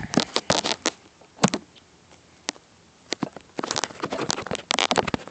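Handling noise from the recording device being picked up and moved: irregular clusters of clicks, knocks and rubbing close to its microphone, thickest near the end.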